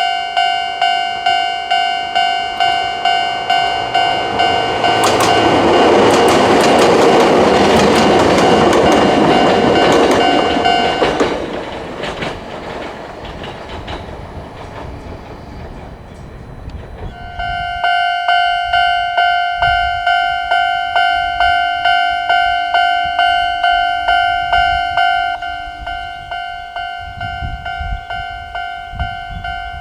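A Japanese railway level-crossing alarm of the old standard type rings a repeating electronic ding-ding tone. About four seconds in, a train passes over the crossing: a loud rush of wheel noise with clicks over the rail joints. The alarm stops about eleven seconds in, starts again abruptly about seventeen seconds in, and grows quieter near the end.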